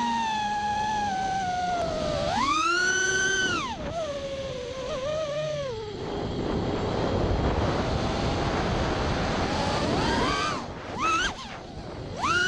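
Brushless motors of a 5-inch FPV racing quadcopter (Emax 2205 2300kv) whining, the pitch rising and falling with the throttle, and a hard surge about two seconds in. Then the throttle is cut and only rushing wind is heard for several seconds as the quad dives into a gap in the trees. The motors spool back up sharply near the end to pull out of the dive.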